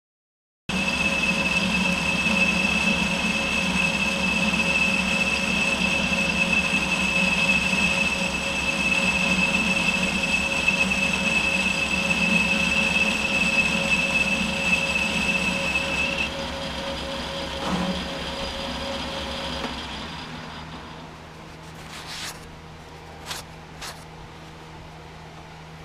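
Smithy Granite combination lathe running under cut as the tool turns a 7-degree outside taper on a steel muzzle-brake blank, with a steady high whine over the motor hum. The whine stops about 16 seconds in and the lathe winds down around 20 seconds, followed by a few light clicks.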